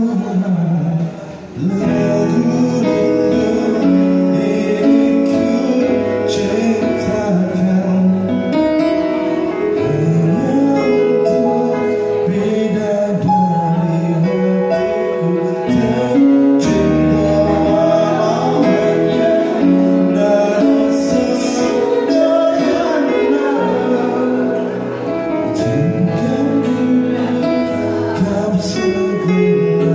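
Live duet of a male and a female singer performing a song through handheld microphones, with instrumental accompaniment.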